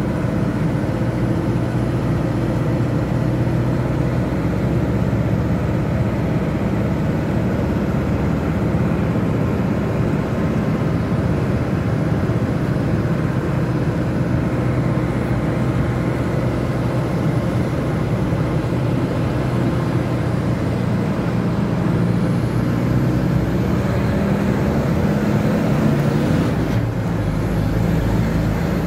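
Steady engine hum and tyre and road noise of a vehicle driving slowly in traffic, heard from inside the moving vehicle. Near the end the low rumble grows heavier.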